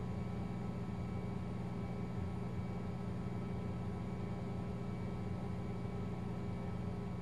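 A steady low drone with several held tones, unchanging throughout.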